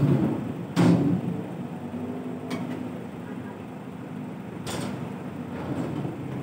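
Tractor truck's diesel engine idling steadily while metal parts at the fifth-wheel coupling knock and clank a handful of times. The two loudest knocks come in the first second, and single ones follow about two and a half and four and a half seconds in.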